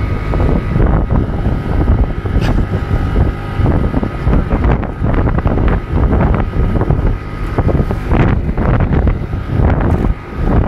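Wind buffeting the microphone on a moving motor scooter, with the scooter's engine running steadily underneath at speed.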